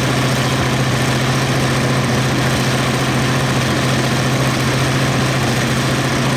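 A 1000 hp aircraft radial engine running steadily on a ground test stand, with a strong, unchanging low drone and no change in speed.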